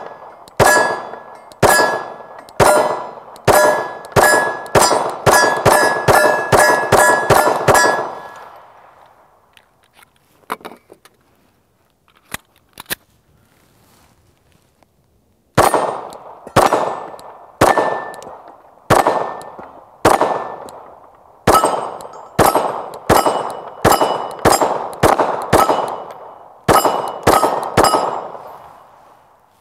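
Rapid 9mm shots from a Glock 19 pistol, each answered by the ringing clang of a struck steel target. Two fast strings of about fifteen shots each, the first speeding up toward its end, are split by a pause of several seconds with a few faint clicks.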